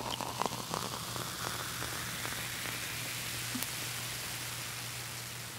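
Beer running from a stainless draft tap into a pint glass: a steady hiss of the stream filling the glass.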